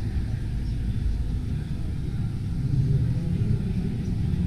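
Steady low rumble of background noise in a large exhibition hall, with no distinct events.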